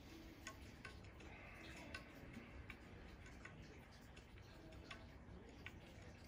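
Faint, regular ticking, about one tick every three-quarters of a second, over a quiet background.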